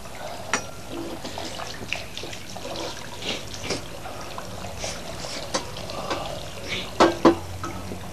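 Liquid being poured while dishes are handled, with scattered light clinks and taps and two sharp knocks about seven seconds in.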